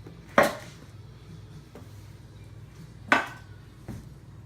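Two sharp clinks of kitchenware knocking together, about three seconds apart, each with a short ring, while dry detergent powders are being combined. A steady low hum runs underneath.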